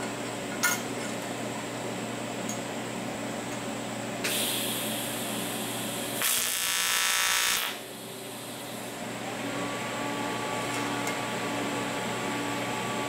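TIG welding arc on 7075 aluminum plate striking a tack weld: a buzz lasting about a second and a half a little past the middle, after about two seconds of hiss. A light metal clink sounds near the start as the plates are set together.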